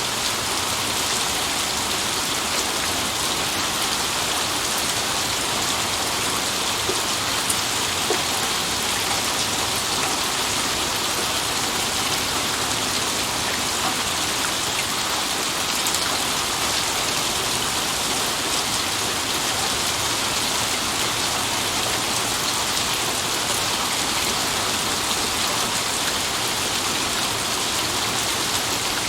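Steady rain falling, an even hiss with scattered individual drops ticking on a surface. No thunder is heard.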